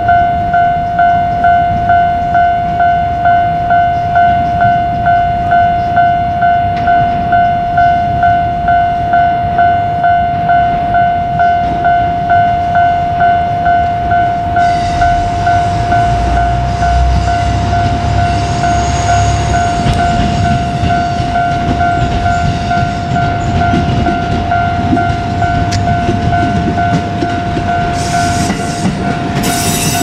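Japanese level-crossing warning bell ringing, a steady repeating electronic ding. About halfway through, a JR Kyushu KiHa 200 diesel railcar approaches, its engine rumble and wheel noise growing, with loud rail noise near the end as it reaches the crossing.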